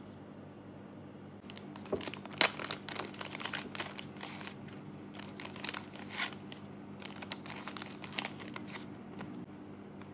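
Thin clear plastic photocard sleeves and their packet crinkling and rustling in the hands as a photocard is slipped into a sleeve. The irregular crackle starts about a second and a half in, is loudest just after that, and stops near the end.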